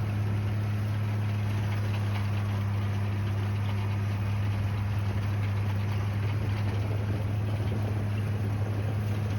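Tractor engine running steadily at a constant speed, powering a hay tedder that is fluffing up cut grass hay.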